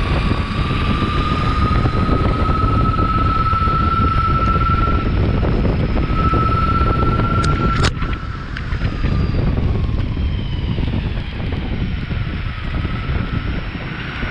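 Meepo Hurricane electric longboard's motors whining while riding, the pitch rising gently and holding, then fading about eight seconds in and coming back lower near the end, over a steady rush of wind on the microphone. A single sharp click about eight seconds in.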